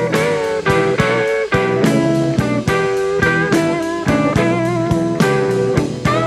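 Blues-rock band playing live: an electric lead guitar holds bent, wavering notes over bass and drums.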